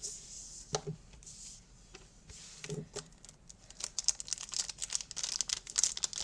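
Cube packaging being handled and opened: crinkling and rustling, with a few light knocks about a second in and around three seconds, and busier crackling in the second half.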